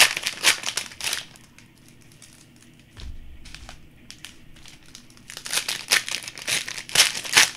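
Plastic wrapping on Panini Prizm and Optic trading-card boxes and packs being crinkled and torn open: a burst of crinkling at the start, quieter handling in the middle, then crinkling and tearing again over the last two seconds.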